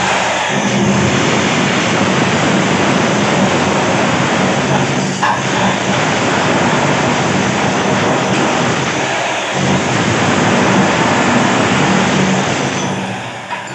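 Electric demolition (chipping) hammer running steadily against a bathroom wall, breaking off old tiles and plaster. It pauses briefly about five seconds in and again about nine and a half seconds in, then eases off near the end.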